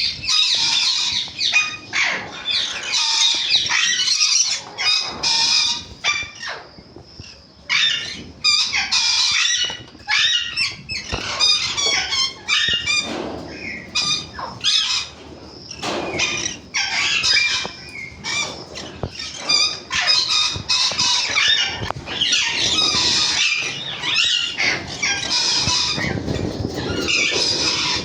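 A flock of parrots screeching and squawking, with harsh calls overlapping almost without a break.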